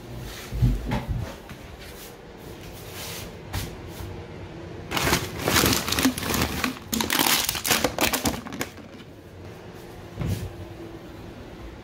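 Crinkling and rustling of paper and plastic being handled, with a few dull bumps. The loudest part is a run of quick crackles from about five to nine seconds in.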